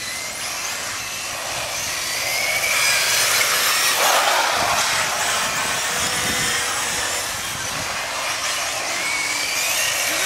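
Several radio-controlled cars racing on asphalt, their electric motors whining high and rising and falling in pitch as the cars speed up and slow down.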